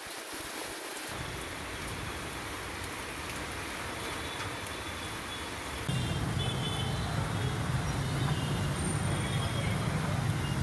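Road traffic on a rain-flooded street, with vehicles driving through standing water. About six seconds in it gets louder, with a heavier low rumble.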